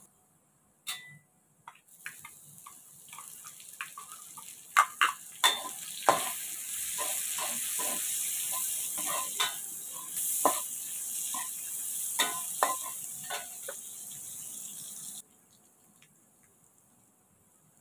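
Chopped garlic sizzling in hot oil in a wok while a spatula stirs and scrapes it, with frequent taps against the pan. The sizzle swells louder about six seconds in and cuts off suddenly near the end.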